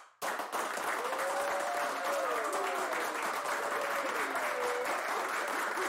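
A crowd applauding, the clapping starting abruptly just after the start and holding at a steady level, with faint voices wavering under it.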